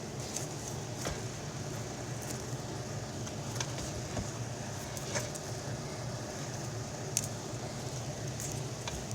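Faint scattered ticks and light rubbing as a 3M adhesive sole protector film is pressed and worked onto a shoe's sole, over a steady low background hum.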